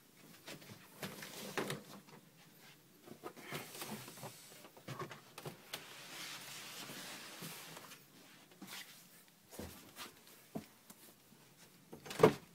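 Rustling and small knocks from a phone being handled close to its microphone, with one louder sharp knock near the end.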